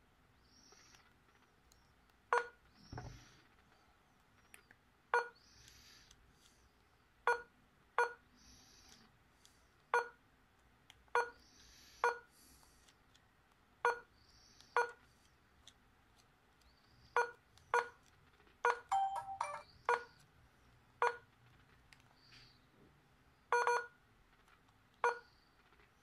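Keypad beeps from an Itelco IT2500 candybar mobile phone as its keys are pressed to move through the menus: short single beeps at irregular intervals, about fifteen in all, with a brief run of quickly changing tones a little before two-thirds in and a double beep near the end.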